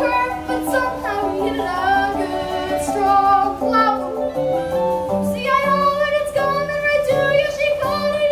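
A child singing a show-tune solo over instrumental accompaniment, holding one long note through the second half.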